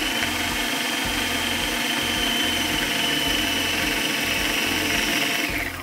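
Electric food processor running steadily, its blade mixing cracker dough of flour, butter and water, with a thin motor whine over the churning; it stops abruptly near the end.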